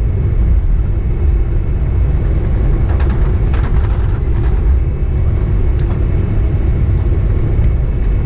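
Steady low rumble inside the cabin of a Boeing 767-300ER rolling along the runway after landing, its Rolls-Royce engines at low power. A few light rattles come about three seconds in and again near six seconds.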